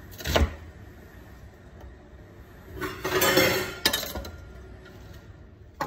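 Chef's knife cutting a white onion on a plastic cutting board: a sharp knock of the blade on the board just after the start, then about three seconds in a second of scraping noise that ends in a click.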